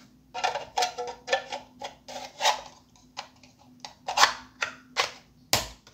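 A 3D-printed plastic battery insert holding 18650 cells is pushed and worked into a metal M4 airsoft magazine shell. It gives irregular clicks, knocks and rubbing, with the sharpest knocks about four seconds in and just before the end.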